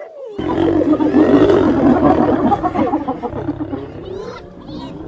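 Snarls, growls and yelps of lionesses fighting spotted hyenas: a dense, loud tangle of short animal calls that cuts in suddenly about half a second in and eases a little near the end.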